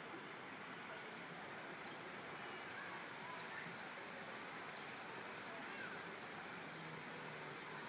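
Faint, steady background ambience with a few indistinct distant voices.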